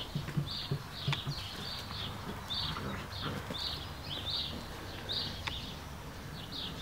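A small bird chirping over and over, short high chirps about twice a second, with a few faint knocks in between.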